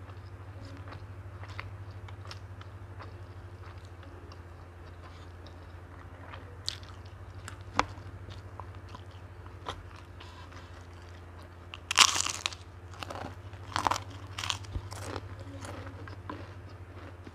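Close-up eating sounds: quiet chewing with small mouth clicks, then about twelve seconds in several loud, sharp crunches over roughly three seconds as a crispy cracker is bitten and chewed. A steady low hum runs underneath.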